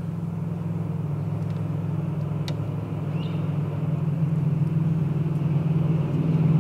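Steady low engine drone, slowly getting louder, with a faint click about two and a half seconds in.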